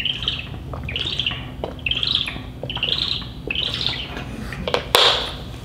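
A man gulping a drink from a large gym water jug: five squeaky swallows about a second apart, then a loud breathy rush of air about five seconds in.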